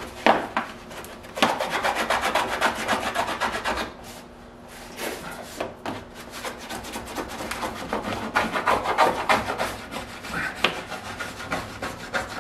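A small metal punch rubbed rapidly back and forth over a card template taped against a car body panel, tracing the cut edge of the metal onto the card. Quick scratchy strokes come in two runs, with a short pause about four seconds in.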